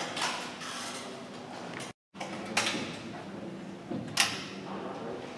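Break-barrel air rifles firing: a sharp shot about two and a half seconds in, and a louder one about four seconds in.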